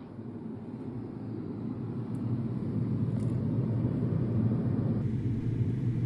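Refrigerator running, recorded from inside the cabinet: a steady low hum with a few steady tones. It grows louder over the first two seconds, and about five seconds in the higher part drops away, leaving only the low hum.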